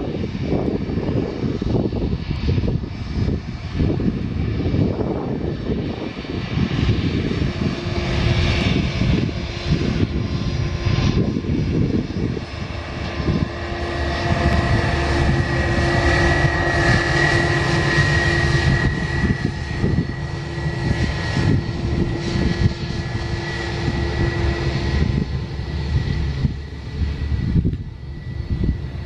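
Airbus A320's two turbofan engines running at low taxi power: a steady whine over a low rumble, the whine strongest in the middle and easing near the end.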